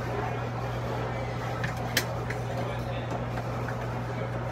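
Steady low hum of the True prep cooler's refrigeration running, its compressor and condenser fan switched on by the new thermostat. About two seconds in there is one sharp knock with a few lighter clicks as parts are set back inside the cabinet.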